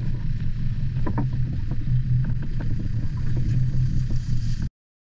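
Small fishing boat's engine running with a steady low hum, water washing and slapping against the hull. It cuts off abruptly near the end.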